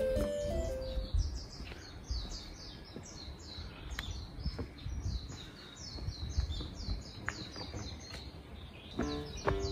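A bird calling outdoors: a steady run of short, high chirps, each sliding downward in pitch, about three a second, over a low rumble. Background music fades out about a second in and comes back near the end.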